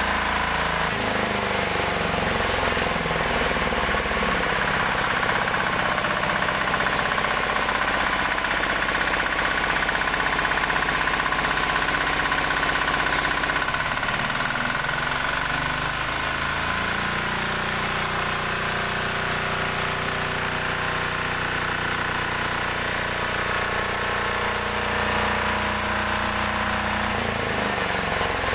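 An 18 hp diesel engine on a new sawmill running on test. Its speed shifts a few times: about a second in, around the middle, and again near the end.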